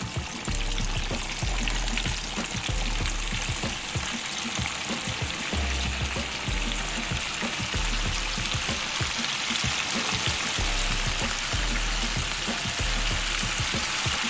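Flour-coated chicken pieces deep-frying in oil at 350 degrees: a steady, dense crackling sizzle of oil bubbling around the chicken.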